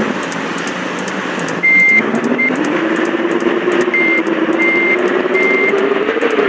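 Large bus engine running, its note dipping and then rising steadily over several seconds. Five short high beeps sound over it, the first about one and a half seconds in and the loudest.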